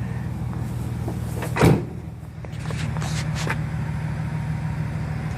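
The 2012 Chevrolet 1500 pickup's door shut with one solid thud about a second and a half in, over a steady low hum.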